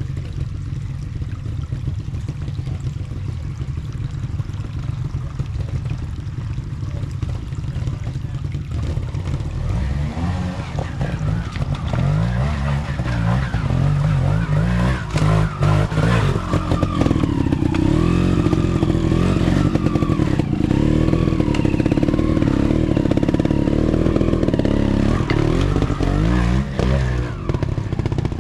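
Trials motorcycle engine running at low revs, then drawing closer and louder from about ten seconds in, revved up and down repeatedly as the bike works through the section.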